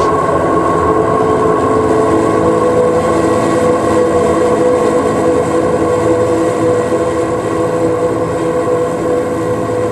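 Ambient drone of live-looped electric guitar: many sustained tones layered into a dense, steady chord, easing off slightly near the end.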